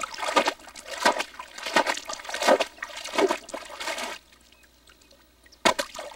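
Rhythmic splashing of water made by dipping a cone-shaped moose-calling horn into a marsh pool, imitating a moose walking in the water: about one splash every two-thirds of a second for about four seconds, then a pause, and the splashing starts again near the end.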